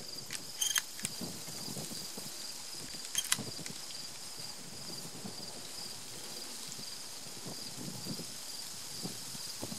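Insects, crickets or similar, chirping steadily in the grass as a pulsing high note, with two sharp clicks, one just under a second in and one about three seconds in.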